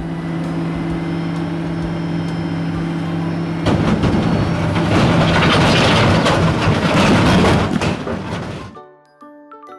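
Large rigid dump truck's diesel engine running. It holds a steady, even note for about three and a half seconds, then turns much louder and rougher for about five seconds before cutting off suddenly near the end.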